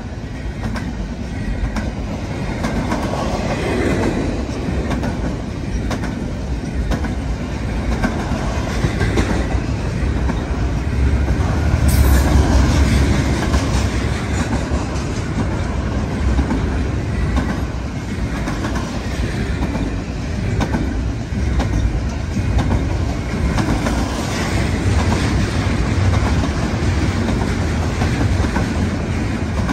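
BNSF double-stack intermodal freight train passing close at speed: a steady low rumble of the container cars with the clickety-clack of wheels on the rails, swelling slightly about twelve seconds in.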